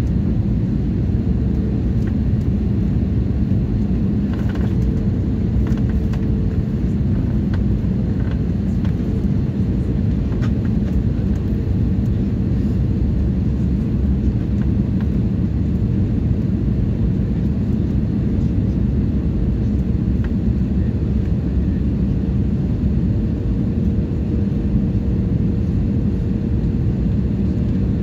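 Steady low rumble of jet engines and airflow heard inside the cabin of an Airbus A320-family airliner on final approach, with a thin steady hum above it and a few faint rattles.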